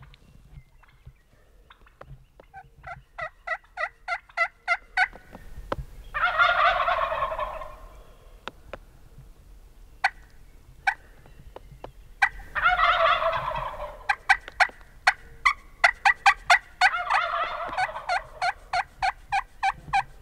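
Wild turkey toms, young jakes, gobbling three times; each gobble is a rattling burst of a second or two. Runs of quick, evenly spaced yelps fill the gaps between the gobbles.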